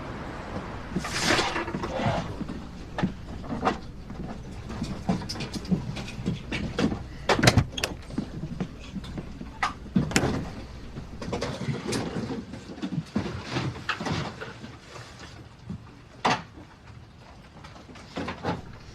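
Scattered knocks, clicks and rustling handling sounds, with a longer scraping sweep about a second in.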